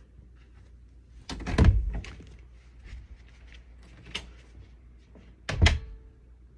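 Two loud thuds of a door out of view, about four seconds apart, with a few lighter knocks between them.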